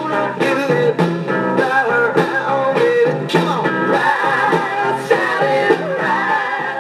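1960s rock-and-roll single with singing and guitar playing from a 45 rpm record on a 1953 RCA 45-EY2 record player, heard through the player's own built-in speaker with no deep bass. It begins to fade near the end.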